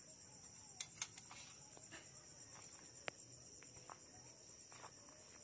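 Faint steady chirring of crickets, a fast pulsing high trill, with a few short sharp clicks, the loudest about a second in and about three seconds in.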